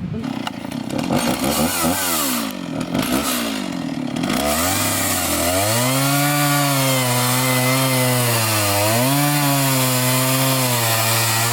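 Chainsaw running at high revs, its pitch dipping and recovering several times as it is worked. In the first few seconds the revs swing up and down more roughly.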